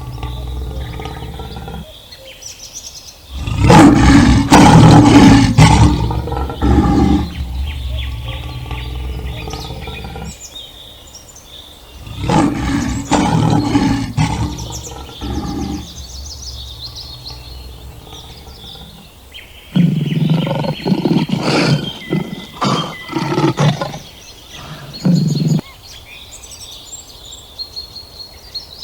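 Big cat roaring: long, loud roars about 4 and 12 seconds in, then a run of short, repeated calls from about 20 seconds in.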